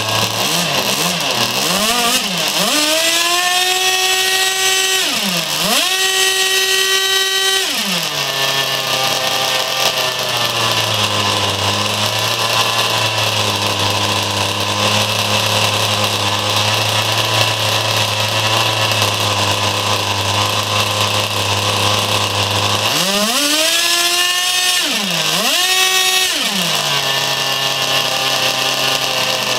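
OS 46VXDF two-stroke glow (nitro) engine on a tuned pipe, driving a Turbax ducted fan, idling and then run up twice to a high, steady scream. Each run-up holds for several seconds, with a brief dip in pitch midway, before dropping back to idle.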